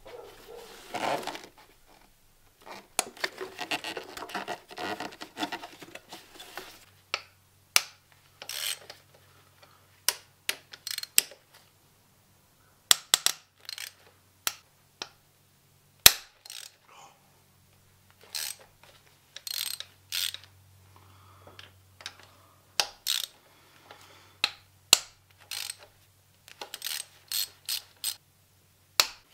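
Hand socket ratchet clicking in runs, with sharp clinks of metal tools and parts in between: bolts being undone to pull the intake manifold off a Subaru WRX engine.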